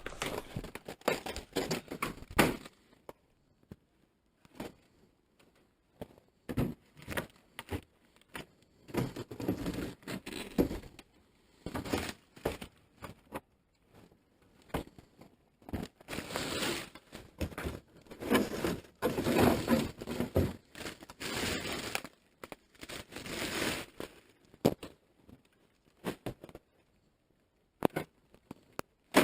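Irregular sharp knocks, clanks and clicks of debris and rusted metal being rummaged through and moved, with longer crunching, scraping stretches over the second half.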